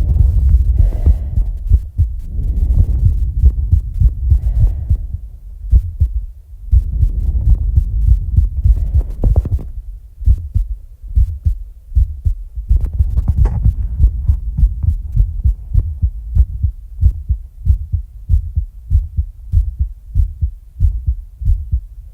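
A person's heartbeat after exercise, fast low thumps about two a second, with heavy breaths swelling over it every few seconds. In the last several seconds the breathing stops as the breath is held, leaving the heartbeat alone.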